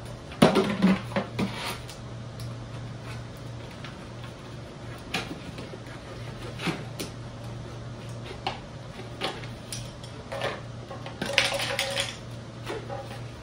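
A plastic jug being handled and set down on a concrete floor: scattered knocks, clicks and crinkles, with a cluster about half a second in and another near the end, over a steady low hum.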